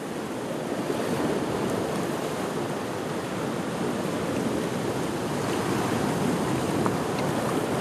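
Sea surf washing steadily against a rocky shore, a continuous rushing noise that swells a little about a second in.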